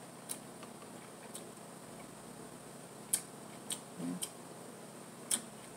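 Scattered sharp clicks and ticks, about six of them, the loudest about three seconds in, as a syrup bottle is handled and squeezed over a plate. A brief low hum comes about four seconds in.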